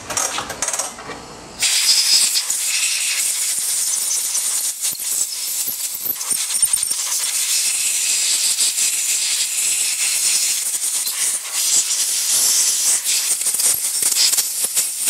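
Compressed-air blow gun hissing steadily as it blows water off a boat's power trim pump, with an uneven crackle in the hiss. It cuts in about a second and a half in, after a few light clicks.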